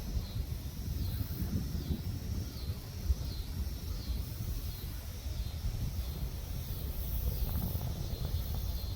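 Storm wind buffeting the microphone as a steady low rumble. Above it, a faint high chirping call repeats about once a second.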